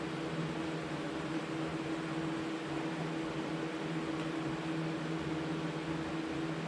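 Steady mechanical hum with a low, even tone under a constant hiss.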